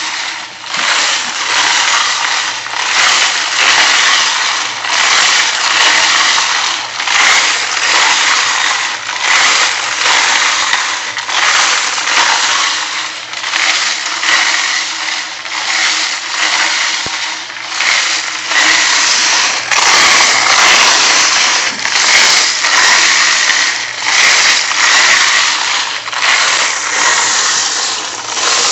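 Home-made roller-driven wet tumbler running: brass cartridge cases and water churning and clinking inside the turning drum, a continuous metallic clatter that swells and eases about once a second.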